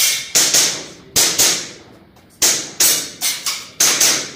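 Airsoft pistol shots fired in quick pairs (double taps) about a quarter second apart, each a sharp crack with a short echoing tail, about five pairs in quick succession.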